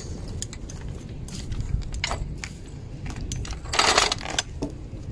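Metal hand tools clinking and knocking as they are handled during work on the car's front suspension, with a short, louder burst of noise a little before the end.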